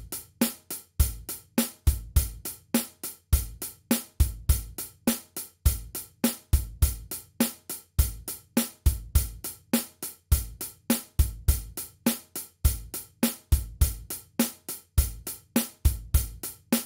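Background music: a steady drum beat with fast, even hi-hat ticks and a recurring kick drum.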